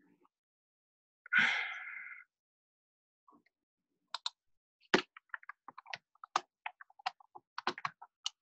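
Irregular clicking of computer keyboard keys, starting about four seconds in and running on in uneven bursts. About a second and a half in there is one short, louder noisy sound that fades out within a second.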